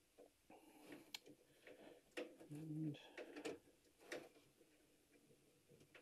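Faint, scattered clicks and rustling of furnace control wiring and connectors being handled by hand.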